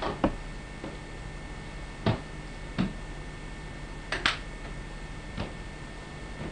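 A handful of short, sharp clicks and knocks at irregular intervals, including a close double knock about four seconds in, over a steady low hum.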